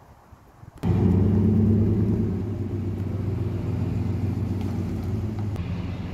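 A vehicle engine running steadily with a low, even hum, cutting in abruptly about a second in.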